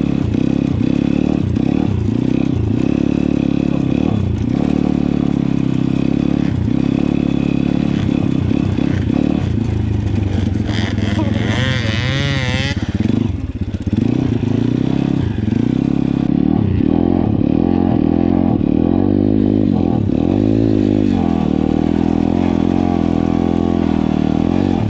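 PitGang 140XD pit bike's single-cylinder four-stroke engine running under way, its revs rising and falling with the throttle. A brief higher warbling sound comes about halfway through.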